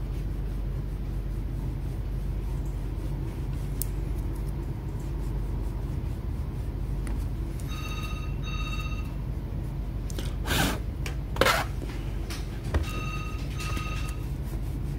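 A telephone ringing in a double-ring pattern: two pairs of short electronic beeps about five seconds apart. Between the rings come two short rushes of noise, over a steady low hum.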